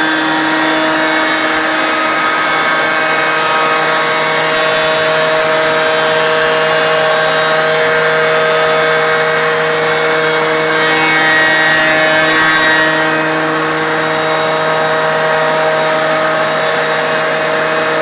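Large five-axis CNC router milling solid wood: the spindle runs with a steady whine while the cutter hisses through the timber. The cutting noise swells about four seconds in and again around eleven seconds in, then drops back to a lighter cut.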